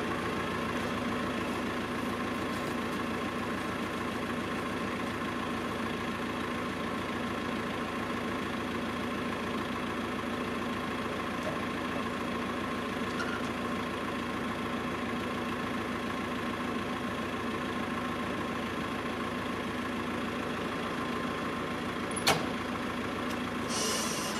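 Farm tractor engine idling steadily, with one sharp click about 22 seconds in and a high hiss coming in just before the end.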